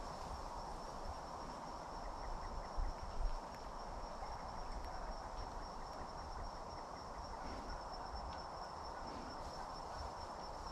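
Insects trilling in the grass and brush: one steady, high, unbroken tone, over a low rumble, with a brief bump about three seconds in.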